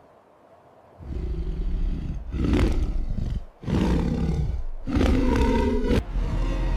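Giant monster roaring, a deep growling roar over a heavy low rumble. It starts about a second in and comes in two long bursts with a short break between them; the second is the loudest.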